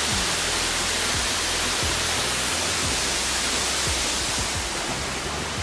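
Waterfall pouring steadily, a dense even rush of water noise.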